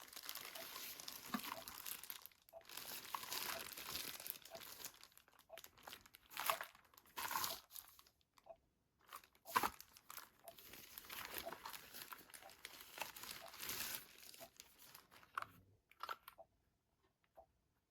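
Packaging crinkling and rustling as it is handled in repeated bursts, with a sharp click about nine and a half seconds in.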